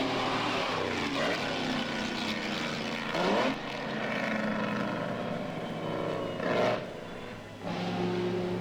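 Mercedes-Benz Grand Prix racing car engines running hard on the circuit. Two louder swells come about three and six and a half seconds in as the cars come past close, with the pitch climbing.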